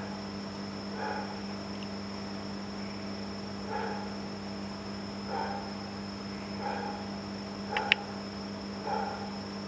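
Aquarium equipment running: a steady low hum and a thin high whine, with soft bubbling gurgles every second or so and a single sharp click near the end.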